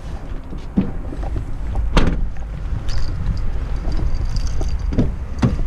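Wind rumbling on the microphone, with a few short thumps. The loudest, about two seconds in, is a Hyundai van's tailgate being shut.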